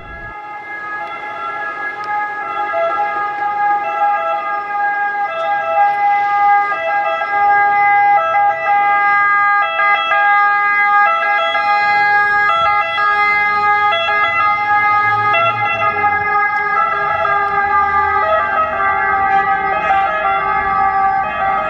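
Ambulance's two-tone siren, stepping back and forth between a higher and a lower pitch, growing louder over the first few seconds as the ambulance approaches and then staying loud. A low vehicle rumble joins under it about halfway through.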